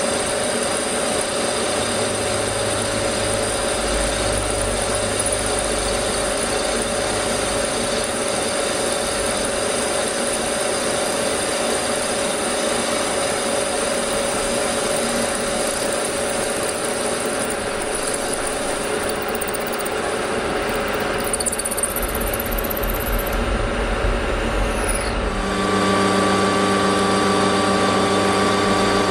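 Bridgeport milling machine running, its drill cutting a hole in a cast cylinder cover: a steady motor and spindle hum with the noise of the cut. Near the end the hum changes pitch and gets a little louder.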